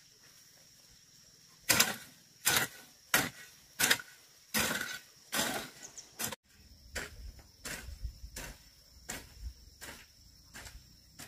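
About seven sharp knocks, roughly two-thirds of a second apart, over a steady high insect drone. After an abrupt cut, lighter and more irregular knocks continue.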